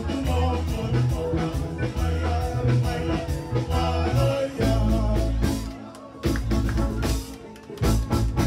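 Live band dance music: singing over guitar, bass and drums with a steady beat. The music thins out and drops in level about six seconds in, then picks up again near the end.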